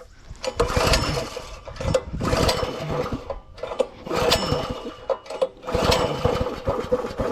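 Gas engine of a new Simpson 3100 PSI pressure washer being pull-started: four pulls of the recoil starter, each about a second of cranking and cord whir, and the engine does not catch on its first start.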